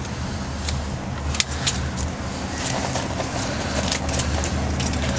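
A steady low mechanical hum throughout, with soft rustling and a few sharp clicks from hands working plumber's putty around fountain cables and a foam stopper.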